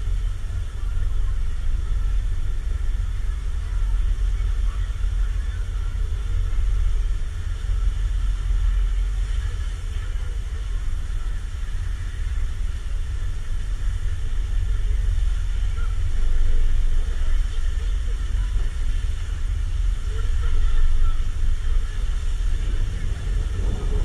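Steady low rumble of wind buffeting the camera microphone on an open, moving chairlift, with faint distant voices mixed in.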